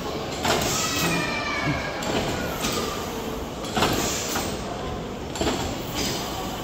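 Harle Syke Mill's 1903 Burnley Iron Works cross-compound Corliss steam engine running slowly. A steady hiss of machinery with louder strokes recurring every one to two seconds.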